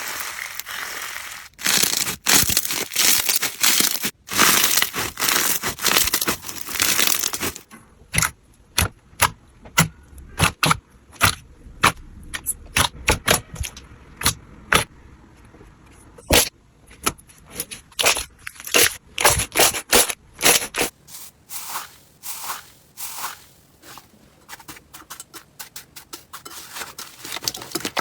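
Slime being squeezed and pressed by hand: dense crackling and crunching for the first seven seconds or so, then a long run of sharp pops and clicks, softer over the last several seconds.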